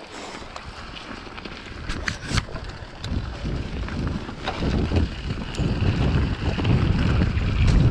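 Mountain bike riding downhill on a rocky dirt trail: tyres rolling over dirt and stones, with sharp rattles and knocks from the bike, under wind noise on the microphone. The rumble grows louder over the second half.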